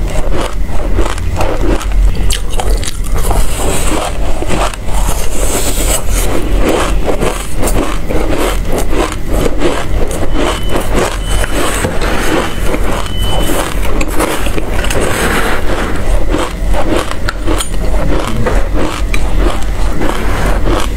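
Loud, dense crunching and crackling of dry black sesame seeds being chewed by mouthfuls, with a spoon scooping through the tray of seeds.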